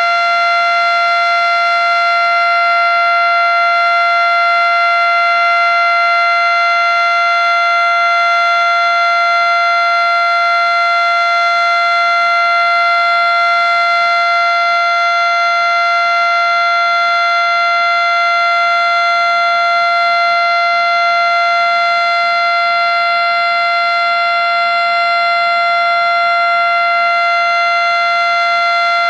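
Federal Signal Model 5 outdoor warning siren sounding its steady alert tone in a yearly test. It holds one loud, unbroken pitch with strong overtones, with no rise or fall.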